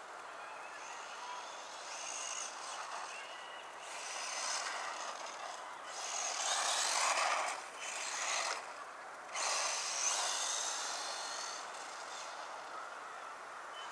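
Traxxas Slash 1/16 VXL radio-controlled truck's brushless electric motor whining and its tyres running over gravel as it drives past. The sound swells loudest about six to eight seconds in and again about ten seconds in.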